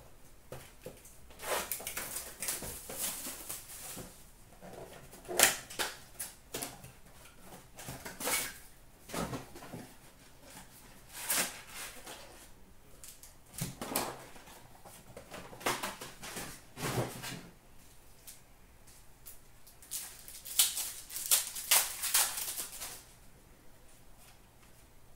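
A cardboard hockey-card blaster box being opened, and its foil-wrapped card packs crinkling and tearing open. The crackling and rustling comes and goes irregularly; the loudest crackles come about 5 s in and again between about 20 and 23 s in.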